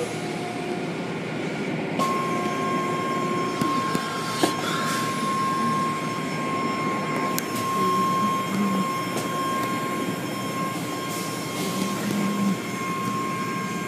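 Steady mechanical noise, with a steady whine joining about two seconds in.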